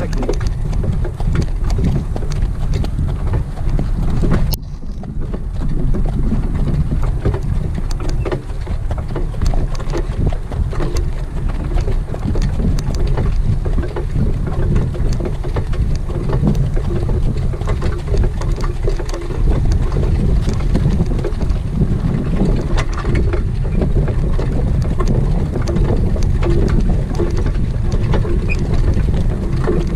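Wind buffeting the microphone: a loud, steady low rumble, dipping briefly about four and a half seconds in.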